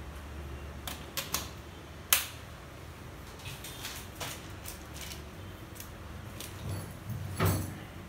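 A three-pin mains plug being handled and pushed into a wall socket, giving a string of sharp clicks and knocks, the sharpest about two seconds in, with a heavier thump near the end.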